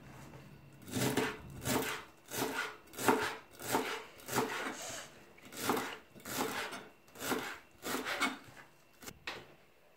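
Large kitchen knife chopping fresh dill and cilantro on a cutting board, a steady run of strokes at about two a second. The strokes start about a second in and stop near the end.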